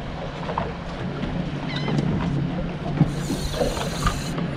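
A boat's motor running steadily under wind and water noise, with a short high hiss about three seconds in.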